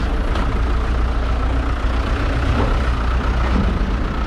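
Motor vehicle engine running steadily, a heavy low drone.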